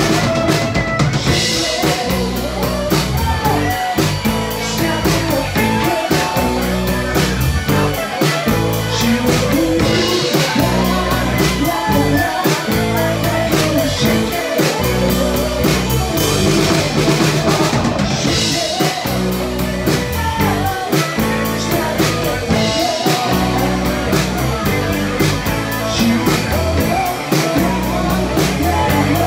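Live rock band playing at full volume, with a drum kit keeping a steady beat under guitar and a singing voice.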